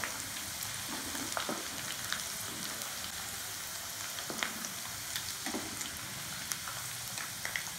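Par-boiled potato sticks deep-frying in very hot oil at the end of their first fry: a steady sizzle with scattered small pops and clicks as they are scooped out with a wire skimmer.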